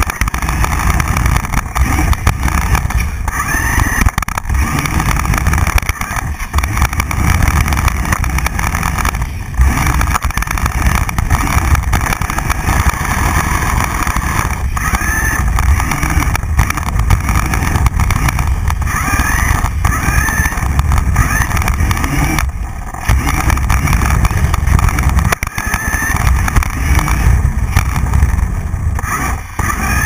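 RideMakerz toy RC car driving on a hardwood floor, heard from a camera mounted on the car: its electric motor and gears whining and the chassis rattling over the boards. Loud and continuous, dropping away briefly a few times as the car stops or slows.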